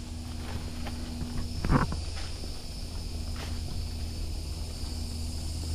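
Footsteps along a narrow woodland trail, one every half second or so, with one louder crunching step about a second and a half in. A steady high insect buzz runs under them.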